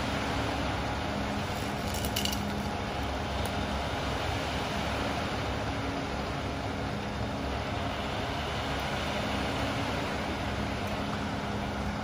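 Concrete mixer truck running steadily with its drum turning, a continuous mechanical drone with a low hum. A few light clicks about two seconds in.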